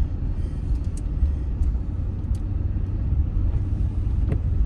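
Steady low rumble inside a Chevy 1500 pickup's cab as it drives on a snow-covered street, with a few faint ticks.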